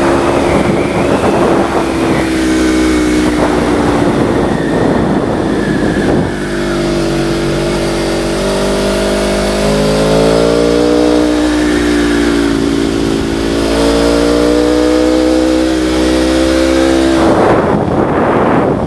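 A vehicle engine running under throttle, its pitch rising and falling as the revs change, with wind rushing over the microphone. Near the end the engine tone fades under a louder gust of wind noise.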